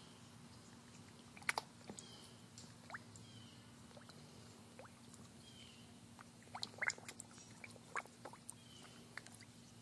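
Koi feeding at the water surface from a hand, their mouths making scattered sharp, wet smacking pops: a pair just after the first second, a busy cluster about two-thirds through, and a few more near the end.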